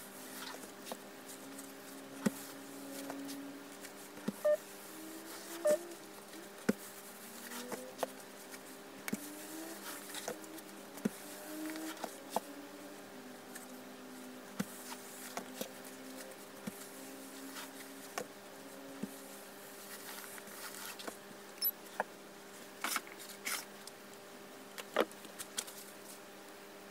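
Small clicks and taps of cotton fabric being handled, pressed with a mini iron and folded on a padded pressing board, over a steady low hum. A faint buzz wavers up and down in pitch throughout, and there is a cluster of sharper clicks near the end.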